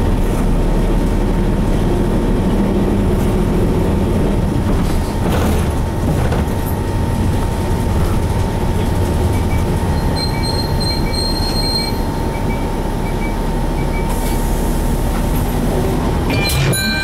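Running noise inside a Hino Blue Ribbon HT route bus (KC-HT2MMCA) under way: its 9.9-litre M10U diesel engine drones steadily with a thin steady whine over it. Faint high squeaks come and go in the second half, and a few clicks and a short squeak sound near the end.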